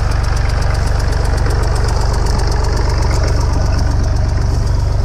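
Tractor engine idling steadily close by, a deep, even throb.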